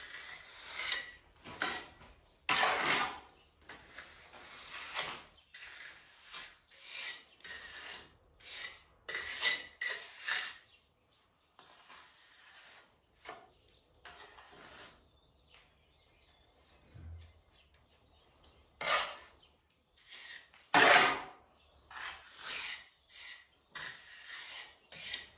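Plastering trowel scraping and smoothing mortar render on a wall in a series of short strokes, with a lull of several seconds near the middle.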